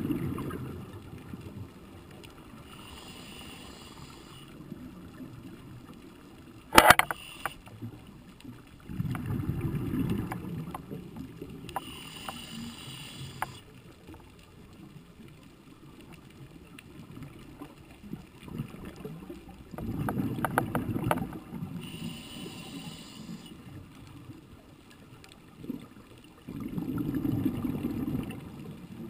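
A diver breathing through a scuba regulator underwater: a short hiss of inhalation, then a low, rough burst of exhaled bubbles, repeating about every nine seconds. A single sharp click about seven seconds in is the loudest sound.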